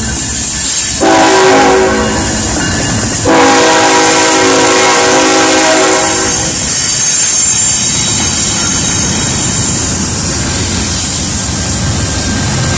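Train horn blowing twice, a short blast and then a longer one, over the steady rumble of a passing train.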